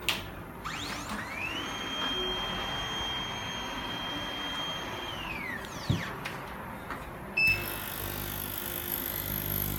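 Electric motor of a tyre printing machine whining up to speed, running at a steady pitch for about three and a half seconds, then winding down, with a click at the start and another about six seconds in. A steady high hiss comes in suddenly about seven and a half seconds in.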